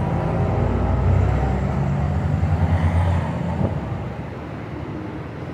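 Road traffic: a motor vehicle's engine rumble passing close, loudest for the first three seconds and then fading away.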